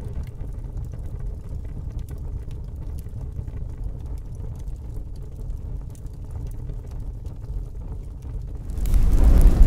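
Steady low rumble with a few faint ticks, then a louder rushing swell near the end that fades out.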